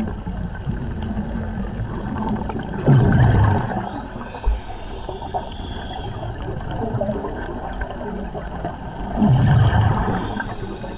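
Underwater gurgle of a diver's exhaled air bubbles, two exhalations about six seconds apart, over a steady underwater hiss.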